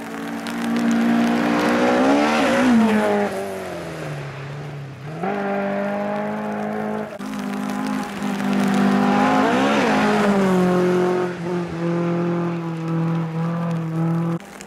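Rally cars driven hard on a gravel stage, engines revving high. One car passes close about two and a half seconds in, and another about ten seconds in, each with the engine pitch rising then falling as it goes by.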